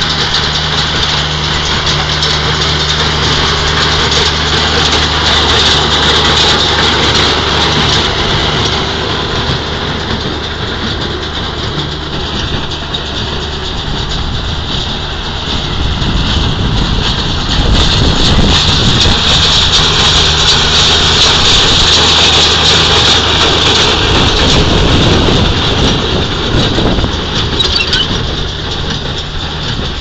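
Freeman self-propelled hay baler at work: its engine runs steadily under the clatter of the pickup and baling mechanism, growing louder as the machine passes close about halfway through.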